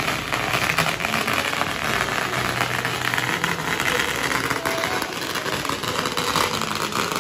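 A long string of firecrackers going off, a dense unbroken crackle of rapid pops.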